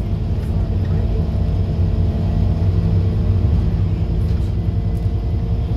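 Scania N230UD OmniCity double-decker bus's diesel engine and drivetrain heard from inside the passenger saloon while the bus drives: a steady low drone with an even engine note and road rumble, and no gear change.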